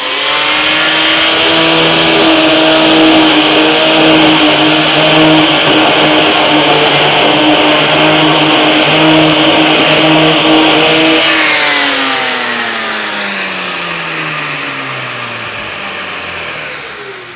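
Metabo LF 724 S paint remover (varnish router) running at full speed with its dust extractor vacuum, the carbide cutter drum skimming a rubber coating off a board at a 0.1 mm cut depth. About eleven seconds in the tool is switched off and winds down with a falling pitch while the extractor runs on, fading near the end.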